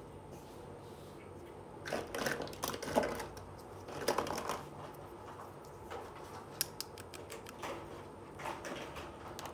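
Small plastic toy kitchen utensils being handled, knocked together and set down: bursts of light clicking and rattling about two and four seconds in, then scattered sharp clicks.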